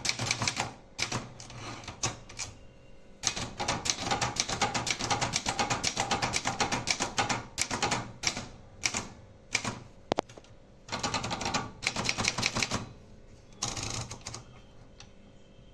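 Brother 250 typewriter being typed on: rapid runs of keystroke clacks broken by short pauses, dying away about a second before the end.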